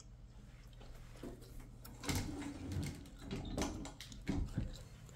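Closet doors being pulled shut: a few knocks, rattles and scrapes starting about two seconds in.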